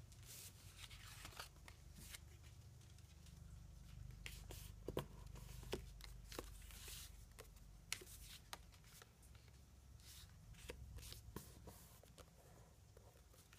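Faint rustling and scattered light clicks of cardstock being folded along score lines and pressed flat by hand, over a steady low hum.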